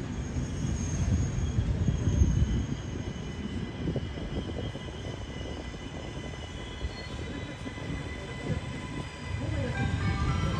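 A train running along the rails through the station, a low uneven rumble with thin, high wheel squeal above it. The rumble eases in the middle and grows louder again near the end.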